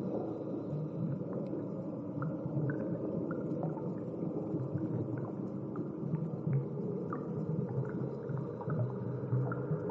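Underwater ambience on a coral reef: a steady low rumble with many short chirps and pops scattered through it.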